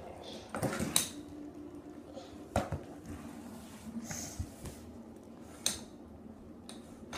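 Fidget spinners clattering on a hardwood floor as they are spun and knocked into each other: a few sharp clicks and knocks, two close together about a second in, one near the middle and one later.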